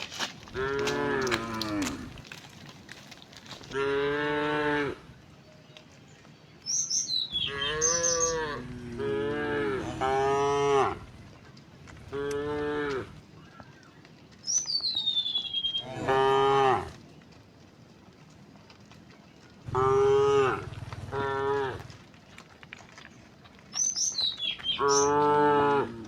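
A herd of cows mooing one after another: about ten moos, each lasting around a second, several falling in pitch at the end, with short pauses between them.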